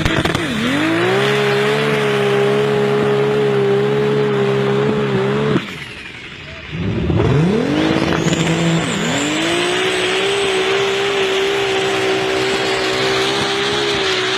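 Engine of a heavily modified 1200 hp Jeep revving up and holding a steady high pitch for about five seconds. It then drops away briefly and climbs again to hold high revs.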